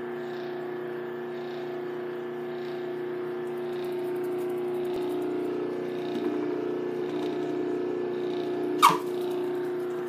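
Homemade ball-pitching machine: an old high-speed machine motor spinning a kid's bike wheel with a steady whine. Near the end comes a single loud smack as the spinning wheel grabs and fires the ball out.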